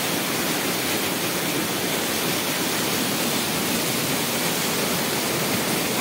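Small waterfall cascading over rocks: a steady, even rush of falling water.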